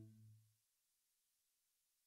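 Near silence: the last low note of the Roland Jupiter-4 software synthesizer's 'LO Funk Lead' preset fades away within the first half second, then nothing.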